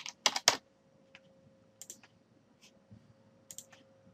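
Typing on a computer keyboard: a quick run of loud keystrokes about half a second in, then scattered lighter key presses.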